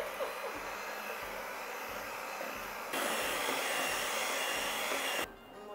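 Hamilton Beach electric hand mixer running, its beaters whirring through red velvet cake batter in a stainless steel bowl. The whir gets louder about three seconds in and stops shortly before the end.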